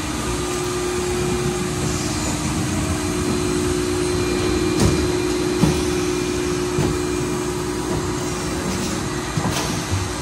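Trim-die machine for blow-fill-seal vial cards running: a steady hum, with a few sharp clicks about five seconds in and again near the end as it cycles.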